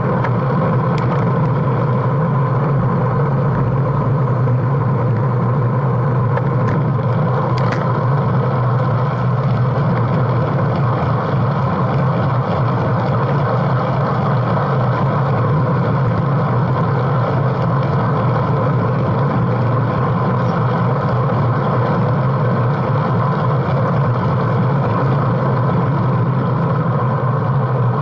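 Steady wind rush and tyre hum from a road bike riding on asphalt at about 30 km/h, picked up by a bike-mounted action camera, with a few faint clicks about a second in and again around eight seconds.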